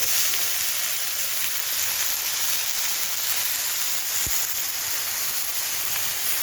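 Chopped potatoes sizzling steadily in hot oil in a wrought iron skillet, frying continuously.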